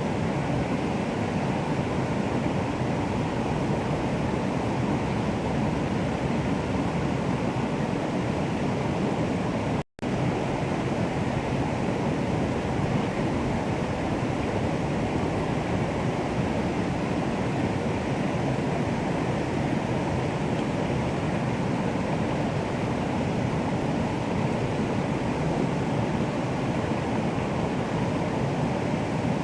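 Water rushing steadily, a continuous even wash of sound, broken by a brief dropout to silence about ten seconds in.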